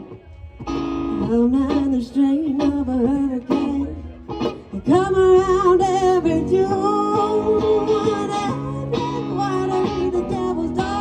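Live acoustic and electric guitars playing an instrumental passage: a lead line with bending, wavering notes for a few seconds, then fuller sustained strummed chords from about five seconds in.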